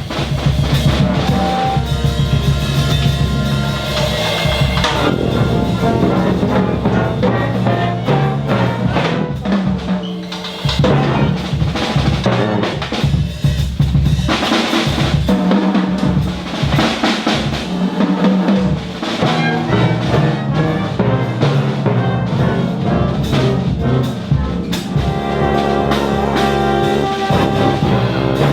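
An ensemble playing a piece with a drum kit keeping a steady beat under brass and a low bass line.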